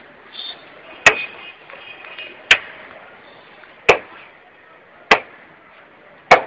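Five sharp knocks, evenly spaced about one every 1.3 seconds.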